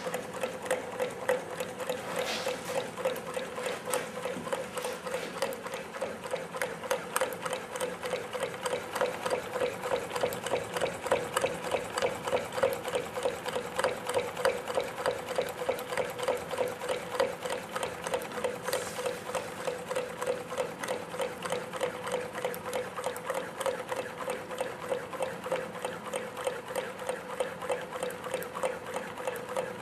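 Homemade Stirling engine running on a wood stove, spinning its fan and magnet-and-coil alternators. It makes a rapid, even mechanical clatter over a steady hum.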